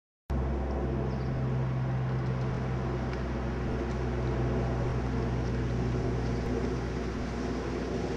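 A steady low motor drone that starts abruptly a moment in, with its strongest low tone dropping away about seven seconds in.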